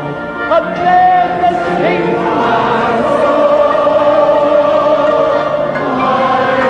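Choral music, voices holding long sustained notes with a few sliding notes about a second in.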